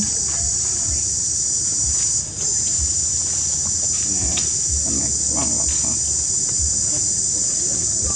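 Loud, steady, high-pitched buzzing chorus of insects, dipping briefly a little over two seconds in.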